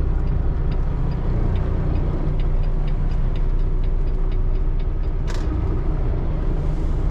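Cummins ISX15 diesel engine of a Peterbilt 579 semi running with a steady low rumble, heard from inside the cab at low speed, with faint regular ticking and a short hiss about five seconds in.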